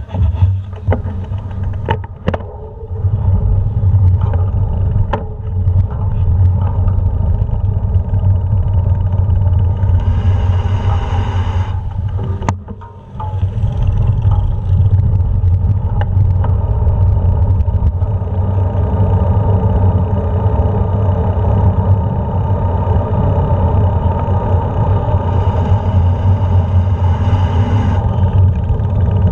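Wind buffeting the microphone of a handlebar-mounted action camera, with rumbling road noise from a moving bike. It comes in suddenly at the start and stays loud and steady, with a short lull about thirteen seconds in.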